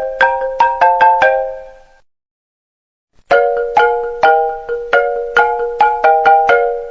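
iPhone ringtone: a short marimba-like melody of struck, ringing chords. The phrase ends about two seconds in and starts again after a pause of about a second.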